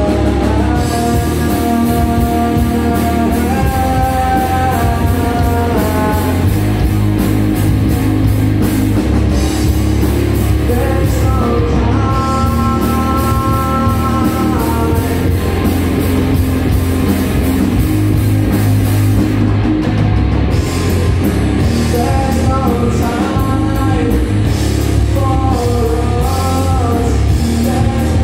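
Live rock band playing: electric guitar, bass guitar and drum kit, with long held melody notes over a steady drum beat.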